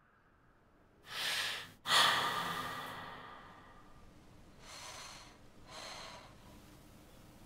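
A woman breathing heavily in distress: a drawn-in breath about a second in, then a louder sigh that trails off, then two softer breaths a few seconds later.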